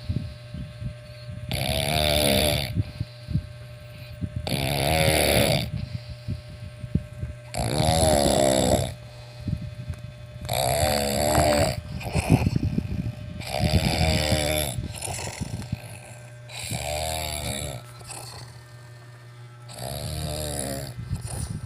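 Snoring in sleep: seven loud snores, each about a second long, coming about every three seconds, the last two a little softer.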